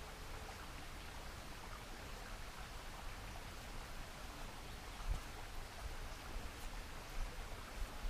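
Steady rush of flowing water from a stream running high after rain, with a soft thump about five seconds in.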